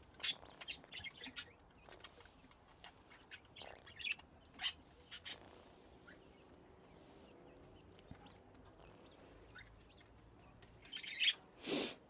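Quaker parrot (monk parakeet) giving short, soft chirps and clicks while held and cuddled, scattered mostly through the first half. Two louder sharp sounds come near the end.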